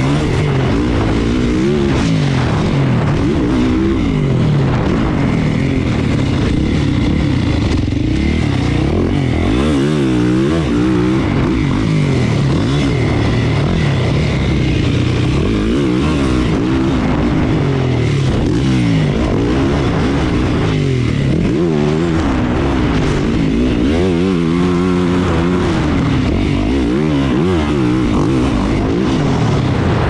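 450cc four-stroke motocross bike engine heard from onboard, revving up and dropping back over and over as the rider works the throttle and gears.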